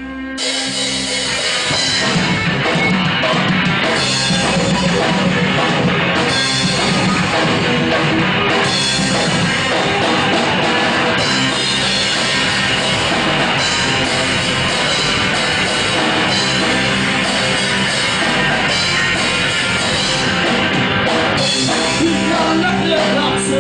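Live indie/punk rock band playing loudly: distorted electric guitars, bass and a drum kit with crashing cymbals, coming in together about half a second in after a short lull.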